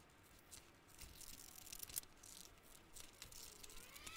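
Faint snipping of scissors cutting a paper template, with light paper rustling between the cuts.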